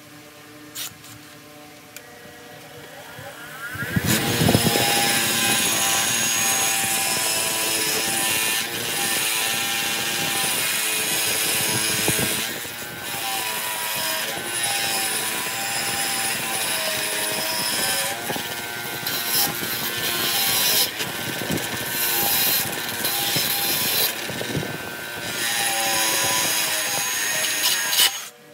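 A power tool starts about four seconds in and runs with a loud, rough, whirring noise for over twenty seconds. Its pitch wavers up and down as the load changes, with a few brief dips, and it stops abruptly just before the end.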